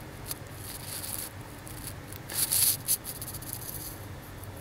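A single soft click about a third of a second in, then a brief louder rustle a little past halfway with another click right after it, over a low steady hum of room noise.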